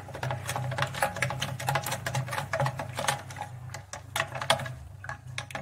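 A metal spoon stirring an iced drink in a glass jar, clinking rapidly and repeatedly against the glass, over a steady low hum.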